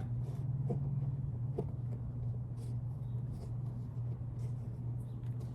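A few faint clicks of small plastic toy figures being handled and set down, over a steady low hum.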